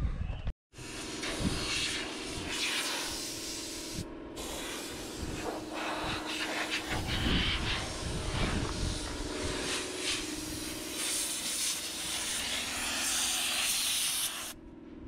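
Compressed air from an air-hose nozzle blowing caked dust out of a dirty tractor air filter: a steady hiss that drops out briefly about four seconds in and stops near the end, over a low steady hum.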